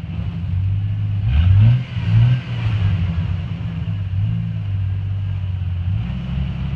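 Jeep Wrangler engine running low and steady while rock crawling over boulders, with two short revs, one about a second and a half in and another just after two seconds.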